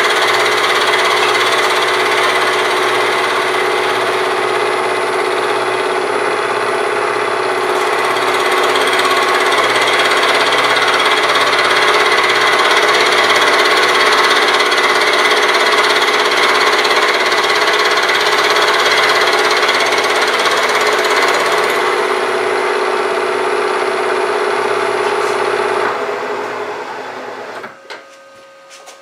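Milling machine taking a light cut across the face of a cast-iron lathe part with an end mill, a steady mechanical grinding over the spindle's running. Near the end the cut finishes and the machine runs down and stops.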